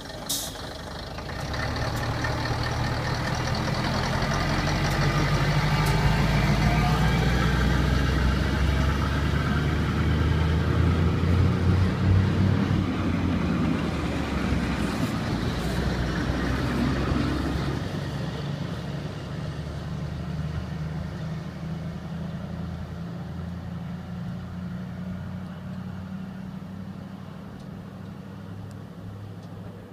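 Diesel railbus train pulling away: its underfloor diesel engines rev up and run past close by, then fade as the train moves off down the track. A sharp bang sounds right at the start.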